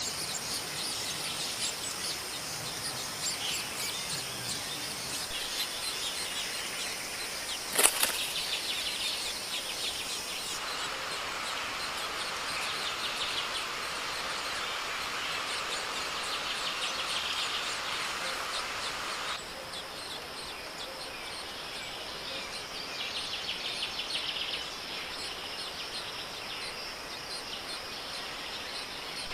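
Forest birds chirping over a steady high insect drone, with one sharp knock about 8 seconds in. The background changes abruptly twice, as at cuts.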